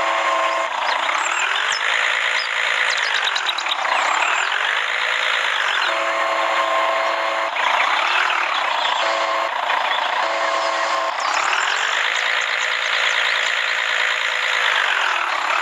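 A crane's electric motor whining through several runs: each time the pitch winds up, holds, then winds down, and the runs last about one to four seconds. Short steady electronic beeping tones come in between the runs.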